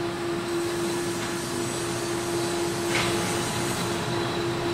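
Electric overhead bridge crane running as it carries a suspended load: a steady motor hum with one constant tone, and a faint knock about three seconds in.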